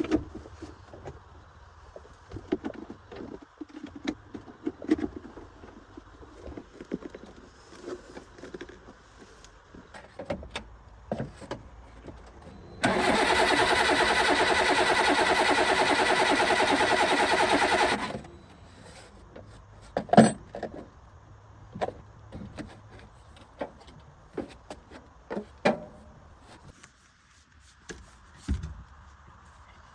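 Scattered clanks and clicks of hand work on an old car. About halfway through, a loud steady motor whir runs for about five seconds, starting and stopping suddenly.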